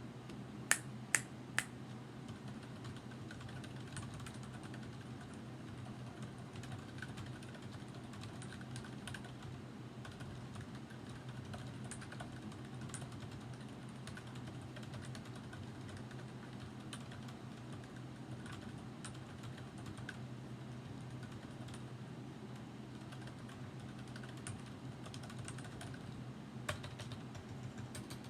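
Typing on a Redragon K552 mechanical keyboard with Outemu Silent White switches and pudding keycaps: a steady run of quiet keystrokes, with three sharper clacks in the first two seconds and one more near the end.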